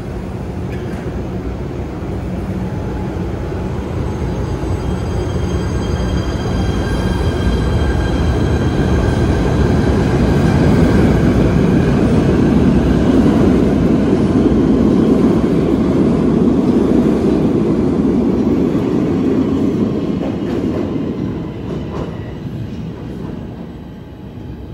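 PATH PA5 subway train accelerating out of an underground station. A motor whine rises in pitch over a heavy wheel-and-rail rumble that is loudest as the cars run past, then fades as the train enters the tunnel near the end.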